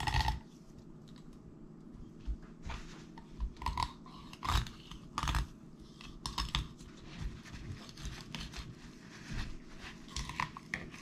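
Knife filleting a whole lake trout on a plastic cutting board: short, irregular cutting and crackling sounds as the blade works along the fish's backbone.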